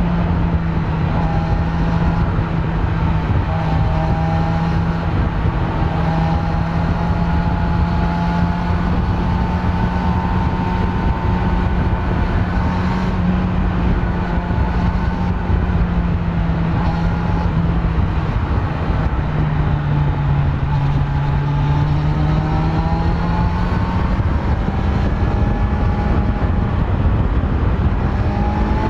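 Kawasaki Z900's stock inline-four engine running at steady riding revs. The engine note drops a little about two-thirds of the way through, then climbs back and rises near the end.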